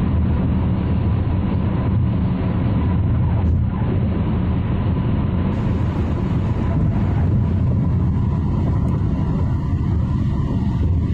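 Steady low rumble of road and engine noise inside a car cruising at freeway speed.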